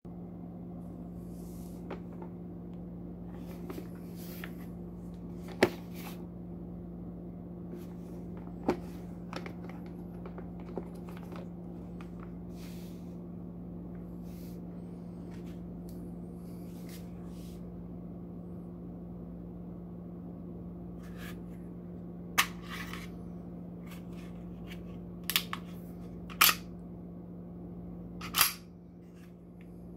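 Hard plastic pistol case and HK P8A1 pistol being handled: scattered sharp clicks and light rustling, with a run of louder clicks in the last several seconds as the pistol comes out of the case. A steady low hum sits under it throughout.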